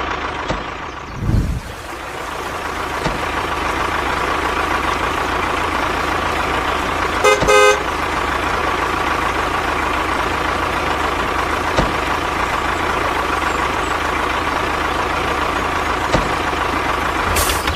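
A motor vehicle runs steadily with a constant hum, and a short horn toot about seven and a half seconds in. There is a low thump near the start.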